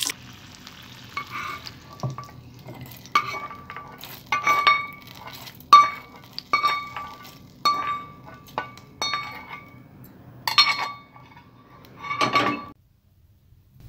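Metal spoon scraping roasted urad dal and green chillies out of an iron kadai and clinking against a stainless-steel mixer jar. There are about a dozen ringing clinks spread over ten seconds, with a short scrape between some of them. The sound cuts off suddenly near the end.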